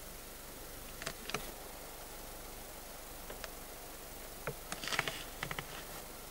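Steady background hiss with a few short, scattered clicks and rustles, bunched most thickly about five seconds in.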